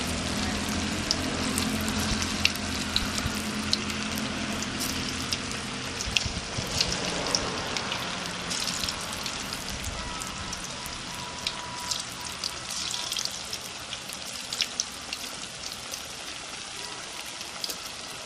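Marinated fish pieces deep-frying in hot oil in a kadai: a steady sizzle with frequent small pops and crackles, easing off gradually.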